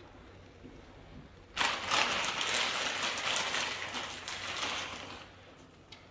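Close rustling and crinkling handling noise for about three and a half seconds, starting abruptly about a second and a half in and fading out.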